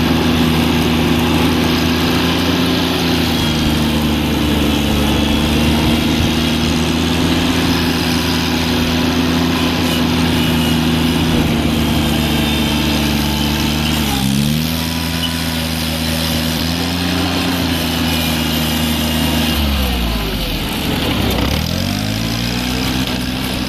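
The Yanmar three-cylinder 18 hp gasoline engine of a 1988 John Deere 322 garden tractor, running steadily as the tractor is driven. Its engine speed dips briefly about halfway through, then sags lower near the end before climbing back up.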